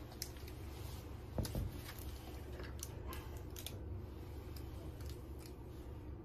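Towel rustling with a few short, faint clicks as hands hold and work on a towel-wrapped cat, over a low steady hum.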